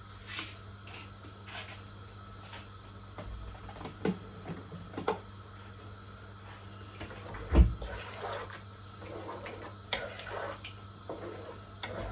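Kitchen handling sounds: a brief shake of a salt container over the pot at the start, scattered knocks and clicks of things being handled on the counter, and one heavy thump about seven and a half seconds in. A wooden spoon stirs in the pot near the end, all over a low steady hum.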